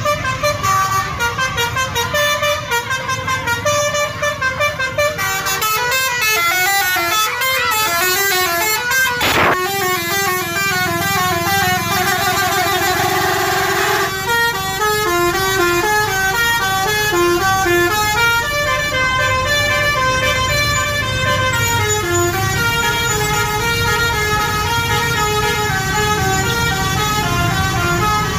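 Telolet basuri musical bus horn playing a melody of clear stepping notes, one after another, with a quick warbling trill near the middle. A bus engine runs low underneath.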